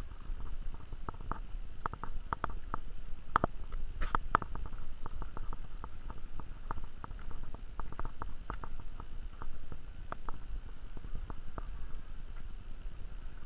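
Camera handling noise as the camera is turned and tilted: a low rumble with many light, irregular clicks and taps, busiest a few seconds in.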